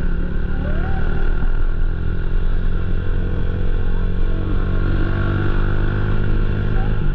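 Motorcycle engine running steadily while riding, under a constant rush of noise.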